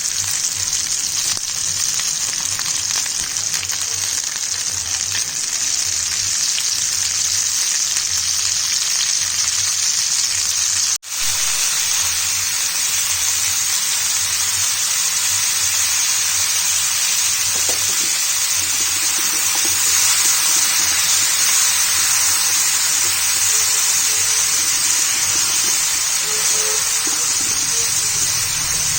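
Pumpkin sautéing in hot oil in a pan, sizzling steadily, with a brief cut-out about eleven seconds in.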